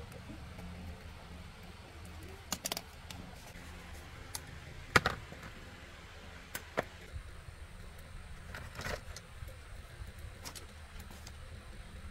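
Scattered sharp metallic clicks and clinks of hand tools and small parts being handled, the loudest about five seconds in, over a low steady hum.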